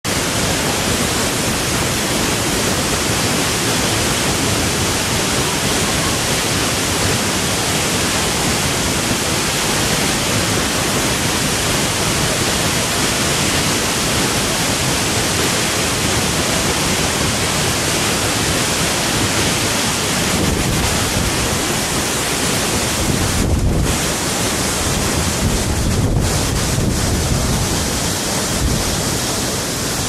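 Loud, steady rushing roar of a waterfall, with low wind rumbles buffeting the microphone in the last third.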